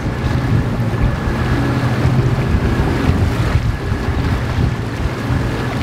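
Wind buffeting the microphone and water rushing past the stern of a sailing catamaran under way, with a steady low drone underneath.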